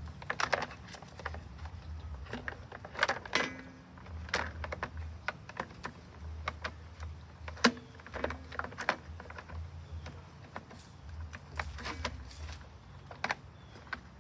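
Irregular clicks and knocks of hands handling the plastic engine cover and parts of a YARDMAX lawn mower engine, with one sharper knock about halfway through.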